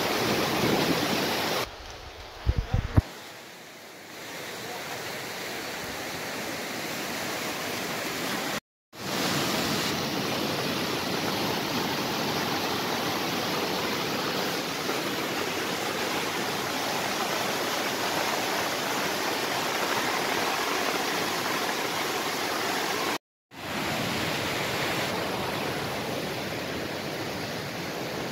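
Muddy flash-flood water rushing fast down a walled street channel: a loud, steady rush of churning water. There is a quieter patch with a few sharp knocks about two to three seconds in, and the sound drops out briefly twice where clips are cut together.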